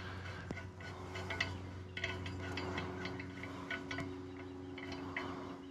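Light, irregular metallic clicking as a castle nut is spun off a Yamaha F350 outboard's propeller shaft by hand, over a steady low hum.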